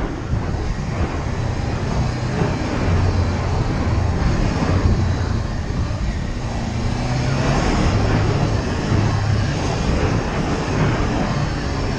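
Honda CB500X's parallel-twin engine running while riding a dirt trail, its hum rising and falling a little in pitch with the throttle, under a steady rushing noise.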